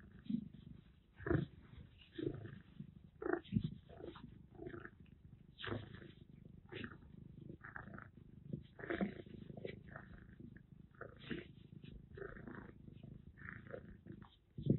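Kitten purring while being rubbed dry in a terry towel, under irregular rustles and soft bumps of the towel.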